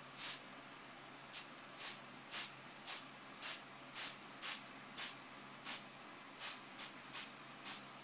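Hand-held trigger spray bottle misting: a quick series of short sprays, about two a second, around fourteen in all.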